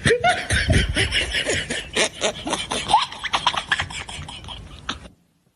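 People's voices shouting and laughing in short, excited cries that rise and fall in pitch, with sharp clatter between them; it all cuts off suddenly about five seconds in.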